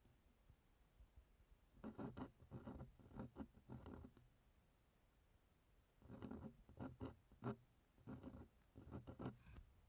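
Metal dip-pen nib scratching on drawing paper in quick short strokes as a small signature and date are written. The strokes come faintly in three bursts, starting about two seconds in.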